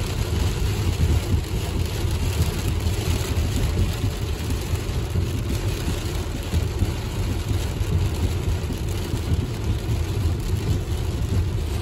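Heavy rain beating on a car's roof and windshield, heard from inside the cabin, over the steady low rumble of the car driving on a wet road.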